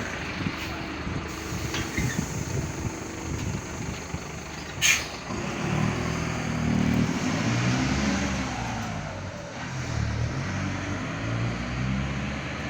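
Mercedes-Benz OF-1519 Bluetec 5 bus's diesel engine pulling away, its pitch rising and falling several times through the gears. A short sharp hiss of air about five seconds in comes just before it moves off.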